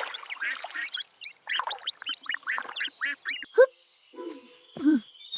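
Cartoon ducks quacking in a quick run of short calls, with a sharp click about three and a half seconds in and a few lower calls near the end.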